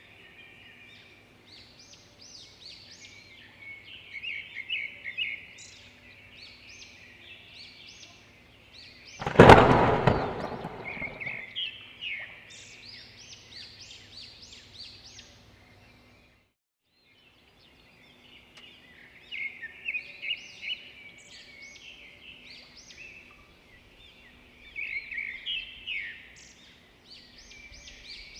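Small birds chirping and twittering in quick runs throughout. About nine seconds in comes one loud bang that dies away over a couple of seconds, and the sound cuts out briefly past the halfway point.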